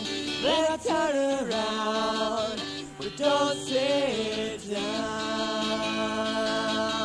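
Singing in an acoustic song, with the voice gliding between notes and holding long ones.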